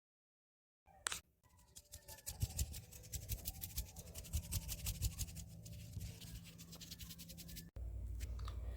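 Rapid, scratchy sketching strokes of a drawing tool on a surface, starting about two seconds in after a single click. The strokes stop abruptly near the end, giving way to a steady low hum.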